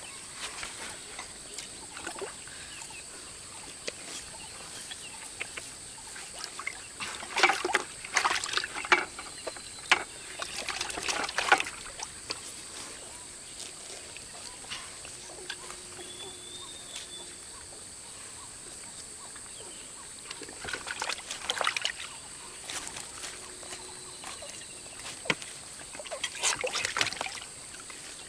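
Water splashing and sloshing in three bouts of short bursts, about a quarter of the way in, around two-thirds and near the end, over a steady high-pitched hiss.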